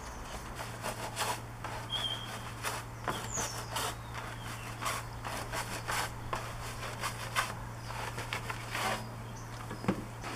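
Brushes scrubbing a foam-covered alloy wheel in short, irregular strokes. A few bird chirps and a steady low hum sound underneath.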